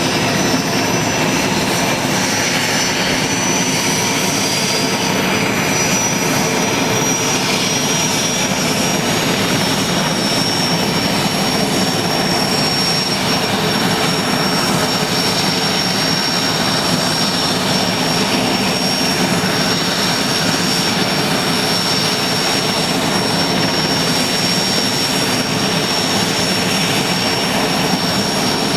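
IAR 330 Puma helicopter's twin turboshaft engines running steadily, a loud rushing noise with a thin high turbine whine that settles to a steady pitch after the first few seconds.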